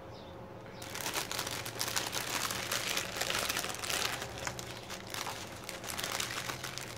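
Thin plastic packaging crinkling and rustling as hands handle clear air-column cushion wrap and small plastic bags of diamond-painting rhinestones. It starts about a second in after a quiet moment and goes on as a busy crackle.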